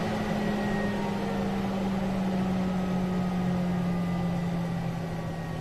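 Fantastic Fan roof vent fan running and slowing down as its pulse width modulator speed control is turned down from full speed: a steady whir with a motor hum that falls gradually in pitch and grows a little quieter near the end.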